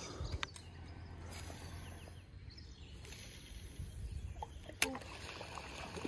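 Faint background ambience: a low steady hum with a few scattered faint ticks, and one sharp click a little before the end.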